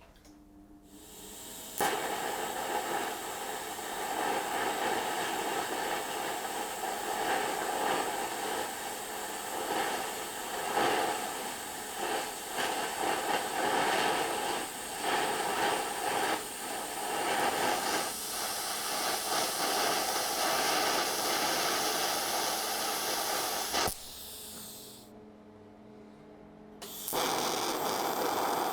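TIG welding arc hissing and buzzing steadily as it is struck and held on a steel table, its loudness rising and falling. It starts about two seconds in, cuts out for a few seconds near the end, then strikes up again.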